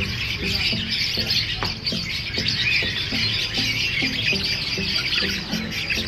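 Dense, continuous chattering and squawking of a large crowd of caged lovebirds, with music carrying a steady beat underneath.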